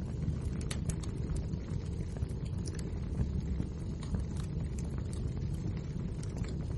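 Wood fire crackling, with irregular sharp snaps over a steady low rumble.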